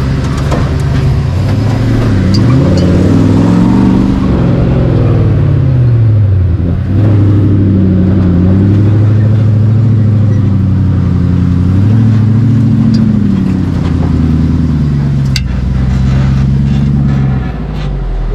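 Toyota 1UZ-FE V8 of an off-road buggy revving up and easing off several times, its pitch rising and falling, heard from the open cockpit. A sharp knock comes about fifteen seconds in.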